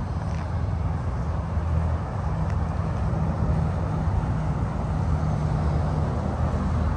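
A vehicle engine idling steadily, a low, even hum with no revving.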